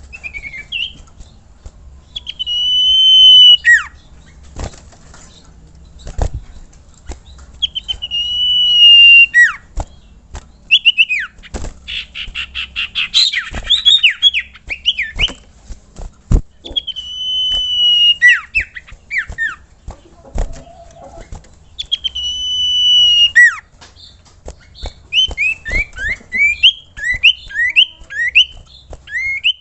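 A sirtu, also called cipoh (common iora), singing. Four long drawn whistles, each held about a second and a half and ending in a falling slur, come roughly every five seconds, with rapid runs of short chattering notes between them. Sharp clicks are scattered throughout.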